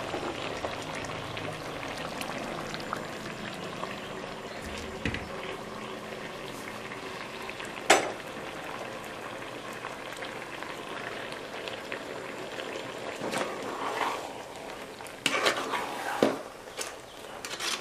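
A pot of aviyal, vegetables in a ground coconut and curd mixture, bubbling steadily on a gas stove as it comes to the boil. A sharp metal clink about eight seconds in, and ladle-on-pot clatters near the end as it is stirred.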